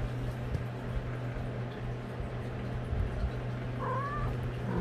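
A domestic cat gives one short, slightly rising meow near the end, over a steady low hum.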